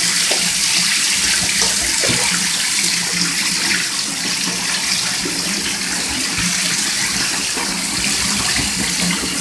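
Shower spray running steadily into a bathtub with water in it, a constant hiss with a few brief splashes.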